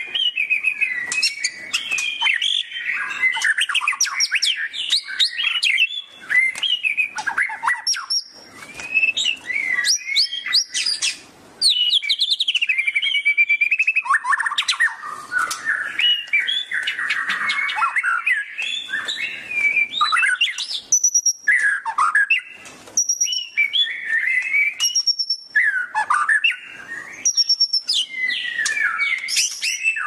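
White-rumped shama (murai batu) singing in full voice: a long, varied run of rich whistles, quick trills and chattering notes, with a few brief pauses.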